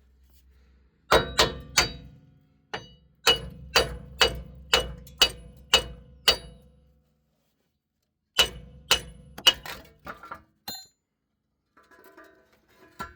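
Hammer blows on a seized rear wheel hub, knocking it out of the knuckle: about fifteen sharp metallic strikes with a short ring, in uneven runs of roughly two a second, with a pause of over a second partway through and two light taps near the end.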